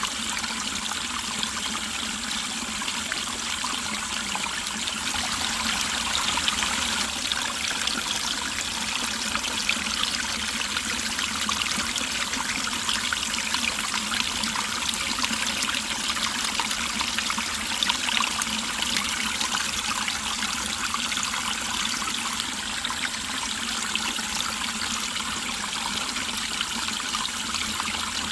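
Mountain stream water running and trickling over rocks, a steady babbling with small splashes throughout.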